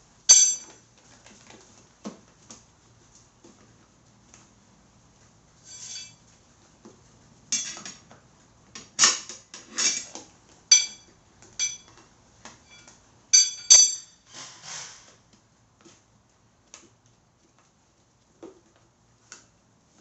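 Metal tire levers clinking against an alloy motorcycle wheel rim as the tire is levered onto it: sharp, ringing metallic strikes, one near the start and a busy cluster through the middle, some in quick pairs.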